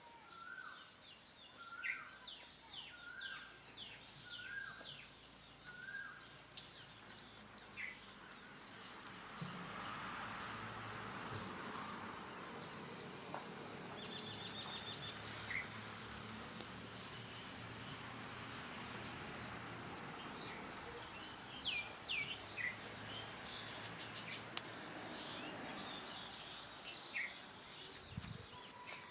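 Outdoor nature ambience: a steady high-pitched insect drone with scattered bird chirps and calls over it. Early on one bird repeats a short rising note about six times, and quick downward-sweeping chirps come in short bunches near the start and again about two-thirds of the way through.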